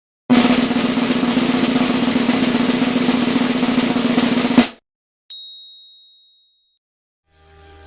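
Snare drum roll sound effect lasting about four seconds and ending in a sharp hit, followed by a single high bell ding that fades out.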